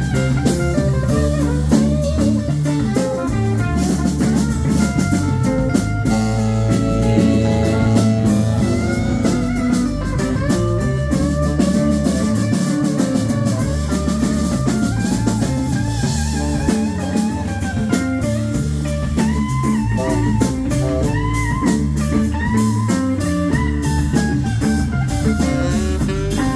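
Live rock band playing an instrumental passage: a lead guitar line with bent, wavering notes over a drum kit and a steady low end.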